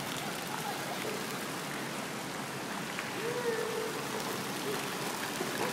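Steady splashing of a pool fountain's water jet falling into a swimming pool.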